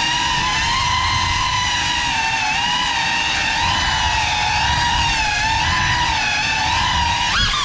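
Small FPV drone's motors and propellers whining, the pitch wavering up and down as the throttle changes, with a quick sharp rise in pitch near the end.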